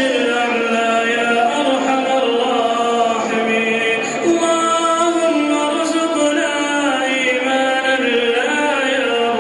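Melodic vocal chanting in long held, ornamented notes, with no pauses.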